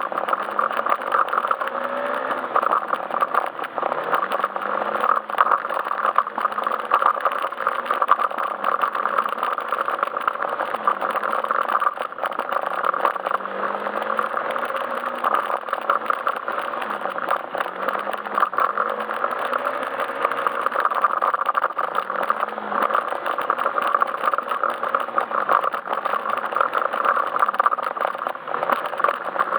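Yamaha Majesty S scooter's single-cylinder engine running under way, its pitch rising and falling every second or two with the throttle, over a steady rattle and road noise.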